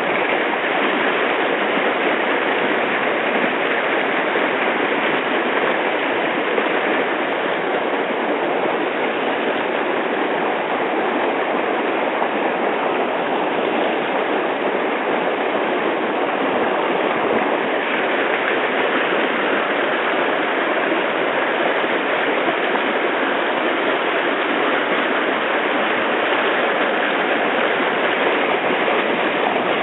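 Rocky Branch river rushing over rocks: a loud, steady rush of moving water without let-up.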